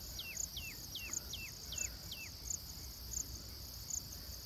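Insects chirping in a steady high-pitched chorus with an even pulse. Over it a bird calls a quick run of short falling whistles, about three a second, which stops a little over two seconds in.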